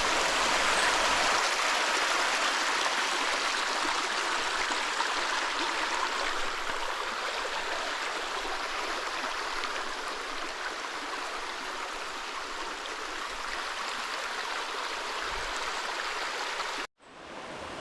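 Creek water rushing, a steady hiss that slowly fades; it cuts out abruptly near the end and comes back quieter.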